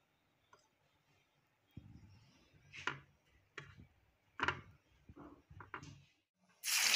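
Soft scattered taps and rustles as a batter-dipped chicken bread roll is pressed and turned in bread crumbs on a ceramic plate. Near the end, a loud sizzle of hot oil starts as a crumbed roll goes in to deep-fry.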